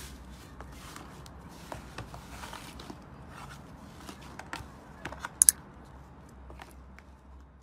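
Hand squishing, kneading and stretching thick slime in a plastic tub: a run of small crackles and sticky clicks, with two sharp, loud pops close together about five and a half seconds in. A faint steady low hum lies underneath.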